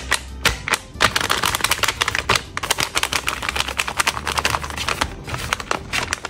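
A hand-made paper blind bag being pressed and squeezed in the hands, crinkling in a dense run of crackles from about a second in.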